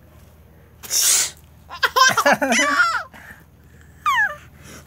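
A young boy sneezes once, a short sharp hissy burst about a second in, followed by high-pitched laughter and a brief falling vocal cry near the end.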